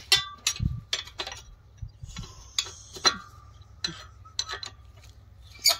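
Steel spanners clinking and clicking against a nut and bolt as a pipe flange is unbolted to pull a borewell motor: about a dozen sharp, irregular metal clicks, some with a short ring.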